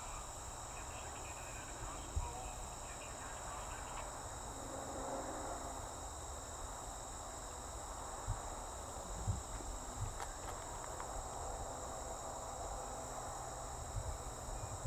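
Steady high-pitched chorus of late-summer insects, unbroken throughout, over a low rumble with a few soft bumps.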